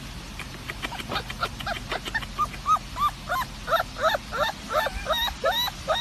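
A small dog or puppy yapping: a rapid run of short, high yips, about three or four a second, that grows louder.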